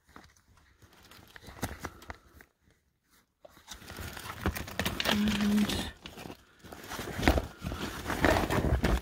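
Hands rummaging through papers in a leather wallet and then through cloth: paper and fabric rustling and crinkling, with handling bumps close to the microphone. It gets louder and busier from a few seconds in.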